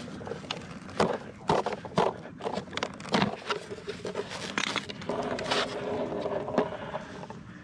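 Metal skateboard trucks being unclipped from Qwik Trucks quick-change mount plates on the deck: an irregular series of sharp clicks, knocks and scrapes from the metal hardware and the deck.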